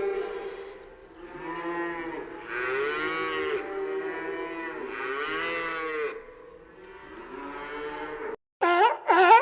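Cows mooing: a run of long, low moos, one after another. Near the end the sound cuts to a different animal's short, repeated calls, about four in two seconds.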